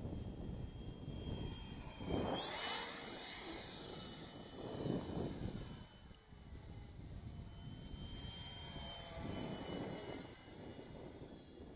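Whistle-modified 70 mm electric ducted fan of a scratch-built RC Eurofighter jet, giving a high whistling whine in flight. The pitch rises sharply about two and a half seconds in, holds, then drops a step around six seconds and again near the end.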